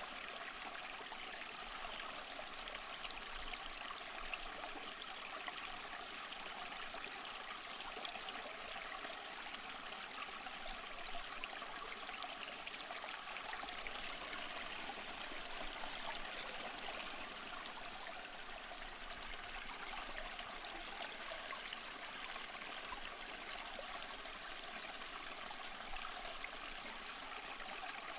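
Stream water flowing and trickling steadily, a continuous babble with many small splashes.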